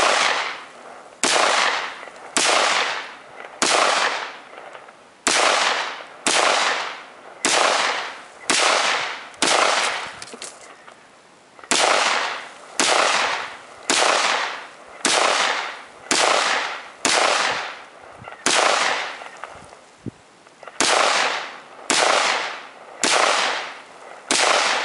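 AR-pattern semi-automatic rifle fired in a steady string of about twenty shots, roughly one a second, with two short pauses, each shot dying away over most of a second.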